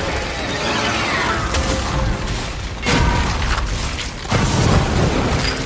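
Film battle sound effects: a falling whistle that drops in pitch over the first two seconds, then two heavy crashes of stone and debris, about three and four and a half seconds in, with music underneath.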